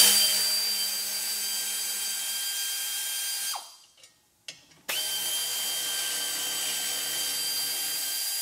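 Pneumatic air ratchet with a 13 mm socket running freely at speed, backing out bolts: a steady high whine over air hiss. It runs for about three and a half seconds, stops, gives a brief blip, then runs again from about five seconds in.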